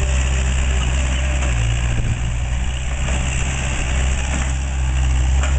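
Diesel engine of a Takeuchi TL126 compact track loader running steadily as the machine works with a bucket of broken asphalt, its note shifting about two seconds in and growing a little louder near the end.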